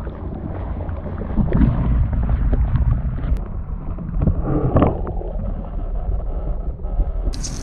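Muffled underwater water noise from a camera held submerged in a river: a dull, low sloshing rumble with irregular knocks. About seven seconds in, the sound clears abruptly as the camera is lifted out of the water.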